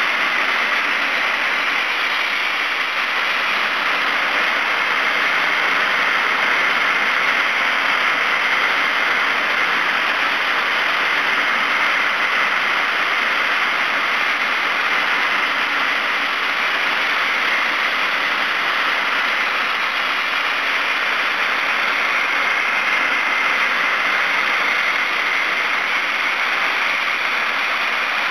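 Soda-blasting nozzle hissing steadily as a jet of compressed air and baking-soda media strips urethane paint and primer from a metal panel.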